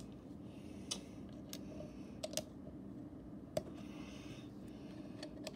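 Lego plastic pieces clicking as they are handled and pressed onto a plate: a handful of scattered sharp clicks.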